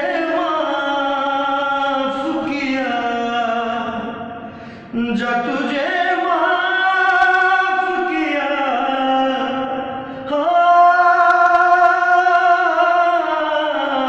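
A man singing solo in long, drawn-out melodic phrases, three of them with short breaths between, about four and a half and ten seconds in.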